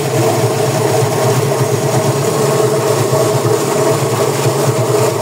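Homemade feed chopper driven by a washing-machine motor, running steadily as fruit and vegetable scraps are pushed through it and ground into a fine mash on a second pass.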